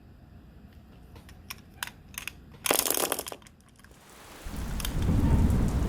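Marbles rolling along a rain-gutter and wooden-rail marble run: a few light clicks, a short rattling burst near the middle, then a low rolling rumble that builds toward the end.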